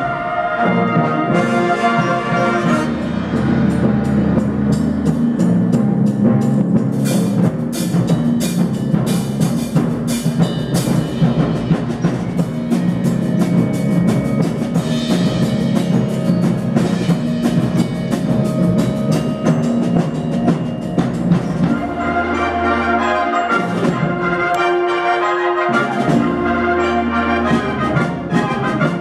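High school band playing: sustained brass chords over percussion, with a run of sharp drum strokes about seven to eleven seconds in.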